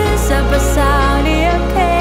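Pop song music: a held bass note under a wavering melody line, with light percussion hits.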